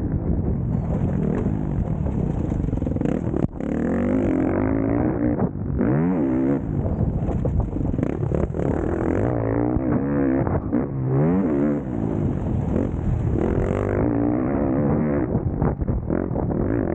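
Motocross bike engines revving hard on a dirt track, the pitch climbing and dropping again and again as the riders accelerate and back off.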